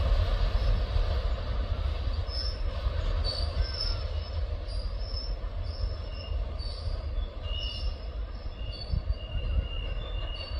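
Rear wagons of a car-carrier freight train rolling away round a curve: a low rumble that fades, with short high-pitched wheel squeals coming and going.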